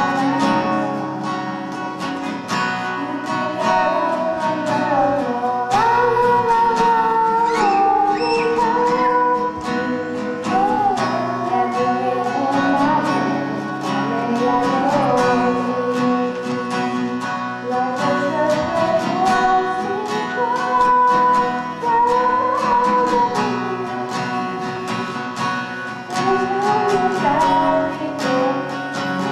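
Singing voices carrying a slow melody over acoustic guitar, with the guitar picked and strummed steadily underneath.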